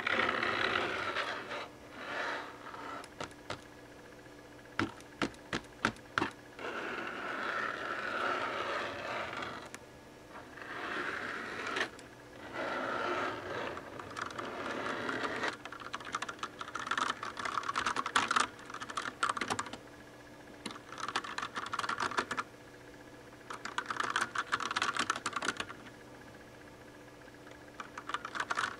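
Das Keyboard mechanical keyboard with Cherry MX Brown switches: stretches of scratching and rubbing in the first half, then several bursts of rapid key tapping separated by short pauses.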